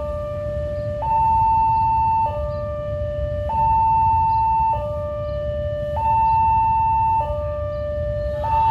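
Railway level-crossing warning alarm sounding a steady two-tone signal, a higher and a lower note alternating, each held a little over a second, warning that a train is due.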